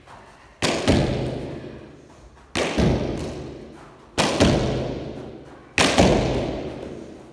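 A hurley striking a sliotar against a wall, four times at an even pace about every second and a half. Each crack of the stick is followed a quarter second later by the ball hitting the wall, and both ring on in the echoing alley.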